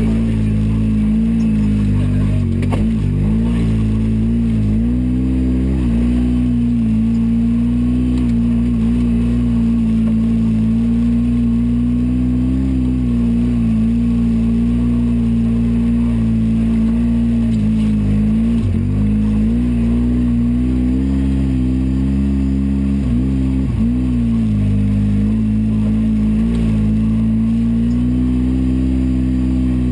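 Polaris RZR 800 side-by-side's twin-cylinder engine running steadily under throttle on a dirt trail, heard from inside the cab, with a few brief dips in revs.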